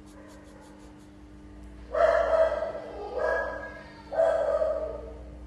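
Three drawn-out vocal calls from a pet animal, about a second apart, the first and last the longest.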